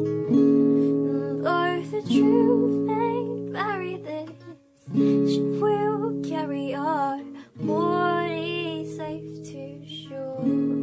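Acoustic guitar strummed in held chords, with a woman's voice singing a wordless melody over it. The chords stop twice, briefly.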